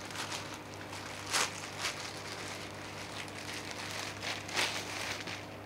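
Clear plastic wrapping around a pair of new cricket batting gloves crinkling and rustling in irregular bursts as the gloves are pulled out of their drawstring bag, with the loudest crackles about a second and a half in and again about four and a half seconds in.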